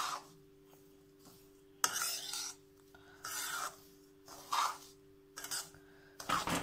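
Steel spoon scraping and stirring semolina being roasted in ghee in a kadai: about six short, gritty scrapes at uneven spacing.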